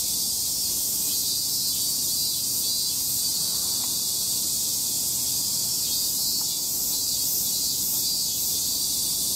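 Steady high-pitched insect chorus, an unbroken hiss-like drone with no pauses or changes.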